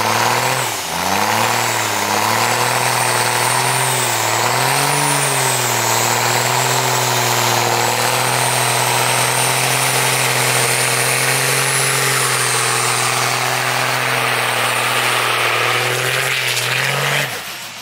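Tuned Cummins diesel in a second-generation Dodge Ram pickup held at high revs through a burnout, with a steady rush of spinning-tire noise over the engine. The revs dip and waver in the first few seconds, then hold steady until they fall away near the end.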